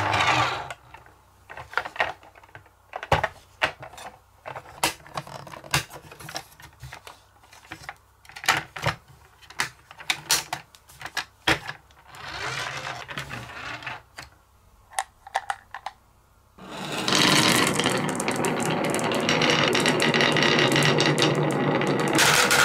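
Scattered plastic clicks and knocks as a toy lorry is handled and its side panels swung open. About 17 seconds in, a load of marbles is released and runs in a dense, steady clatter down a wooden wavy marble slope.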